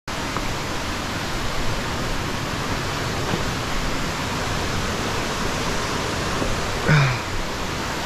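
Steady rush of river water cascading over rocks, cutting in abruptly at the start. About seven seconds in, a short voice sound from a person rises briefly above it.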